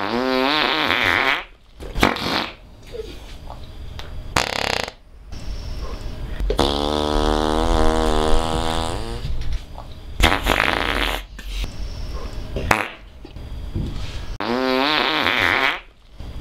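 A string of loud fart sounds, about five in turn, each a pitched, buzzing blast. The longest, in the middle, is drawn out for nearly three seconds.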